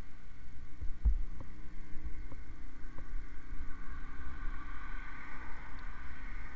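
Motorcycle engine idling: a low, steady throb with a few dull thumps in the first three seconds. A higher hum swells in the second half.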